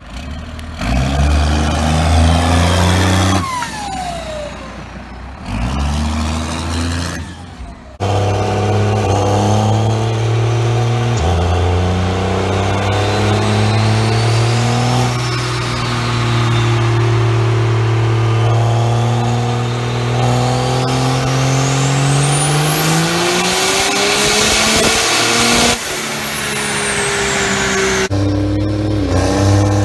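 Pickup engine revving in short bursts, then a Dodge Ram diesel pickup on a chassis dyno making a long full-throttle pull: the engine note climbs steadily with a high whine rising alongside it, until the throttle drops near the end.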